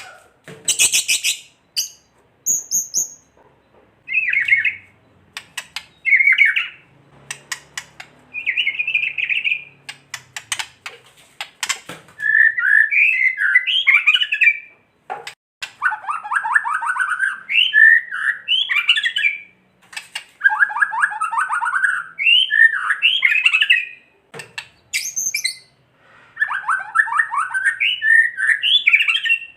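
White-rumped shama (murai batu) calling: scattered sharp clicks at first, then repeated bursts of fast, harsh rattling and chattering phrases from about twelve seconds in. This is the excited 'kretekan' rattle of a worked-up shama, used as a lure to provoke other shamas.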